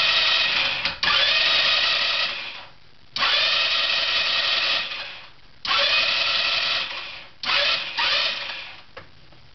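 A 150cc GY6 scooter's electric starter whirring in about six short presses, each a second or so long and fading off. The engine never catches: it is a no-start after riding in rain, which the owner suspects is an electrical fault.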